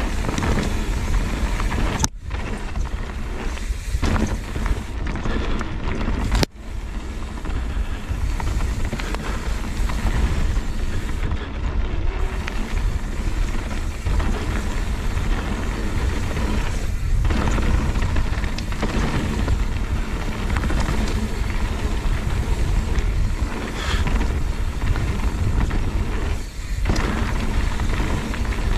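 Wind buffeting the microphone and the tyres of a YT Capra mountain bike rolling over a dry dirt trail at speed, with the rattle of the bike running through it. The sound cuts out briefly twice, about two and six seconds in.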